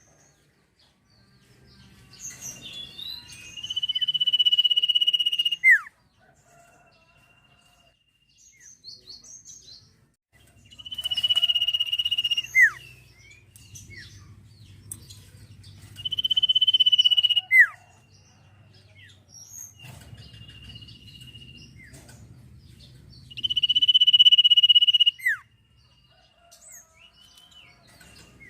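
A sirtu (sirpu) songbird singing, repeating a high, steady whistled note held for one to two seconds and ending in a quick downward slur, about five times, over a low background rumble.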